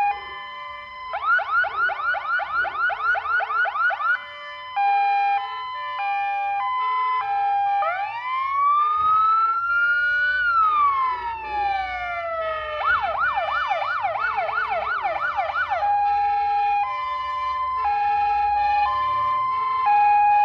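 Fire engine's electronic siren cycling through its tones. It starts on an alternating two-note hi-lo, changes to a fast yelp of about four sweeps a second, then gives one slow rising and falling wail. It goes back to the yelp and then to the hi-lo, getting louder as it goes.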